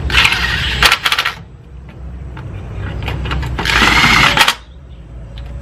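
Handheld power drill driving small screws, its motor running in two short bursts of about a second each, with a whine in the second burst.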